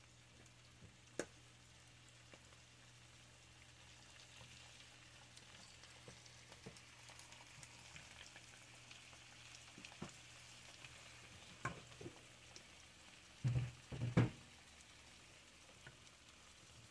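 Faint sizzling of butter melting into the rice mixture in a hot pan, growing slightly from about four seconds in. A few light clicks, and two louder knocks near the end.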